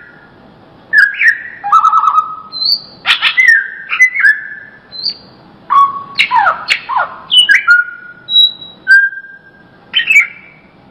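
Cucak ijo, a green leafbird, singing: a run of loud, clear whistled phrases with sharp down-sliding notes, following one another about once a second with short pauses.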